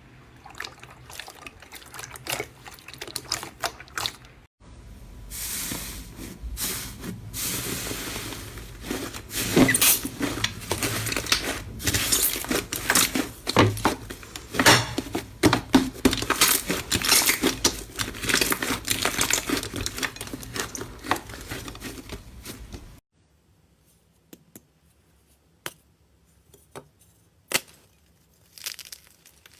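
Hands squeezing and kneading slime: a dense run of sticky clicking and popping that cuts off suddenly about three-quarters through, leaving only a few scattered clicks.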